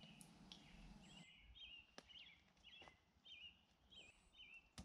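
Near silence, with a small bird faintly calling: a short chirping note repeated about twice a second.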